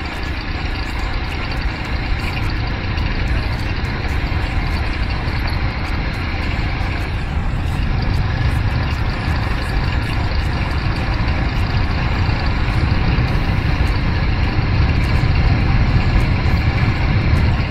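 Jawa motorcycle riding along a highway: a steady rush of wind on the microphone over engine and road noise, slowly getting louder.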